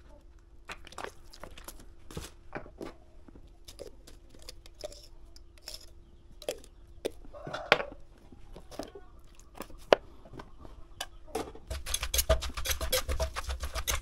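Scattered clicks and knocks of a bottle cap, knife and spoon being handled over a clay mortar, then near the end a rapid run of knocks as a wooden pestle pounds papaya salad in the mortar, with a spoon turning it. A faint steady hum runs underneath.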